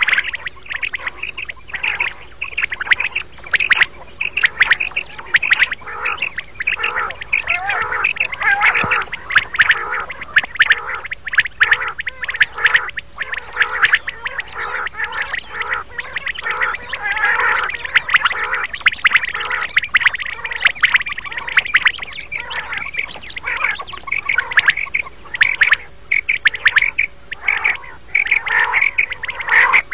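Common quail calling: a dense, continuous chatter of rapid short calls, many overlapping, as in a quail-call recording played to lure quail for hunting.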